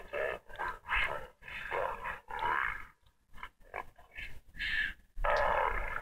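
A cartoon character's voice making a run of short wordless vocal noises, with a brief pause about halfway through and a longer, louder sound from about five seconds in.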